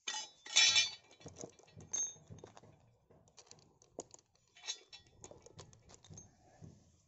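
Small steel parts of a chainsaw attachment kit (saw chain and bolts) clinking and rattling as they are handled: a loud jingling clatter just over half a second in, then scattered clinks and clicks.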